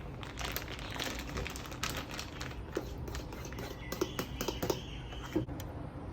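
Irregular rustling and light clicks of bread flour being added and stirred into banana pancake batter in a bowl.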